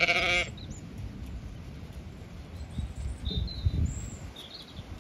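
Sheep feeding at metal troughs in mud, with scattered low knocks and shuffling, and a few faint bird chirps about three to four seconds in. A brief call from a voice is heard at the very start.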